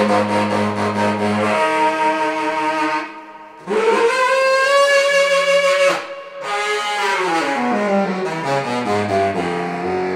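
Solo baritone saxophone playing: a low held note, a short break, a long higher note, then a run stepping back down into the low register.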